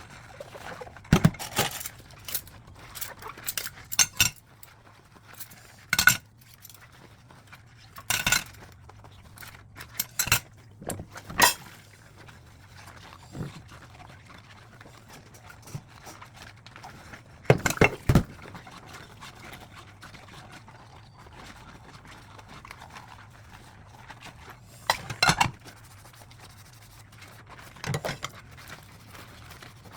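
Dishes and cutlery clinking and knocking together as they are handled and washed by hand, in irregular bursts of clatter with short ringing after the sharper knocks. The clatter is busiest early on, with another cluster a little past halfway and a couple more near the end.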